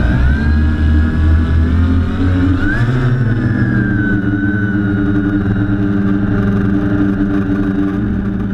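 Electric motors and propellers of a QAV500 FPV quadcopter whining steadily, the pitch rising about three seconds in as it lifts off and climbs.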